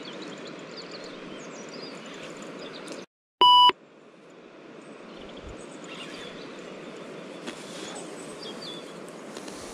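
A short, loud electronic beep, a single pure tone lasting about a third of a second, about three and a half seconds in, just after the background sound cuts out. Around it is steady outdoor background noise with small birds chirping.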